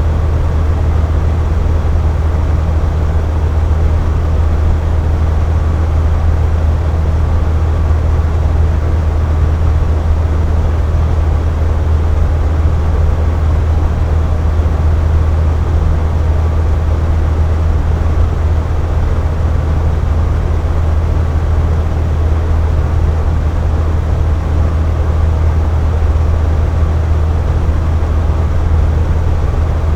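Air conditioner running steadily: a constant low hum with an even rush of air over it, unchanging throughout.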